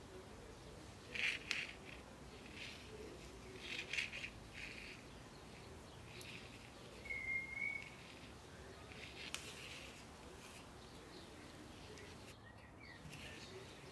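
Faint soft clicks and rustles of wooden knitting needles and wool yarn as stitches are worked, the loudest a little after a second in and again about four seconds in. A brief high chirp-like note sounds about seven seconds in.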